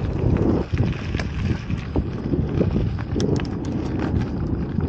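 Bicycle rolling along a dirt road, with many small rattles and clicks over a steady rush of wind on the microphone.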